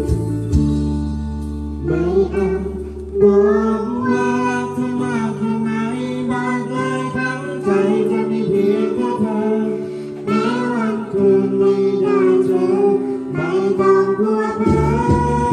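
A young girl singing karaoke into a microphone over backing music, her voice amplified through a portable loudspeaker; the singing comes in about two seconds in after a short instrumental passage.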